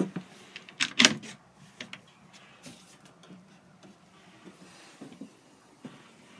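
Clicks and knocks of wooden motorhome cupboard doors and their metal catches being handled. The loudest cluster comes about a second in, with smaller knocks scattered after it.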